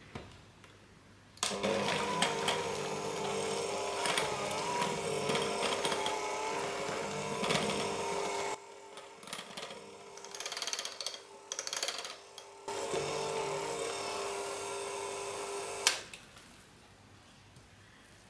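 Electric hand mixer running, its beaters whipping cream and mascarpone into a thick cream in a glass bowl. A steady motor whine starts about a second and a half in, breaks off for a few seconds midway, resumes, and stops shortly before the end.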